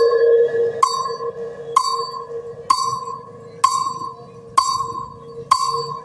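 Soundcheck music played through a large outdoor speaker stack: a bell-like tone struck about once a second, each strike a sharp click followed by a held, steady ringing note.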